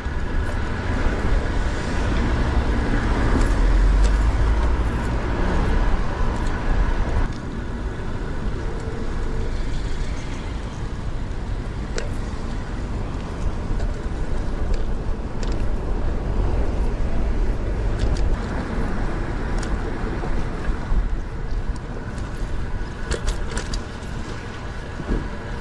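City street traffic heard from a moving bicycle: cars running close by over a steady low rumble, louder for the first seven seconds or so and then dropping back.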